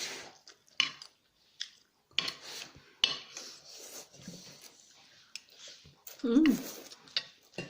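Fork and other cutlery clinking and scraping against a plate during eating, with several separate sharp clinks. A short voiced hum comes about six seconds in.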